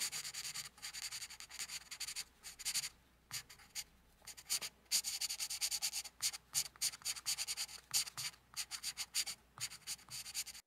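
Plastic bag crinkling and rustling in quick irregular bursts as hands handle it around a potted bonsai tree, with a quieter lull a few seconds in.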